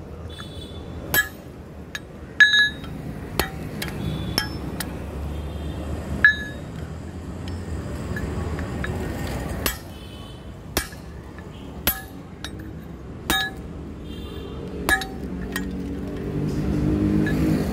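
Hammer blows on a red-hot axe head on an anvil: about ten sharp metallic clinks with a brief ring, irregularly spaced, roughly one a second. A low rumble swells near the end.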